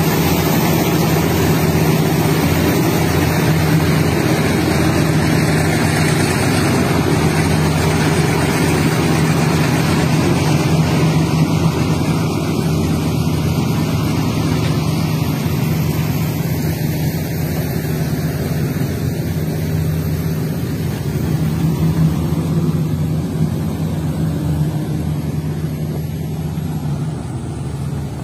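Diesel engine of a loaded logging truck running steadily at low speed as it pulls a long log on its trailer past at close range, easing off slightly in loudness over the second half.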